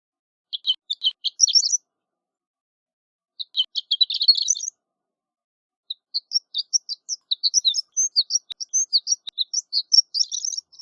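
Horned lark singing: two short bursts of quick, high tinkling notes, then a longer run of quick high notes from about six seconds in.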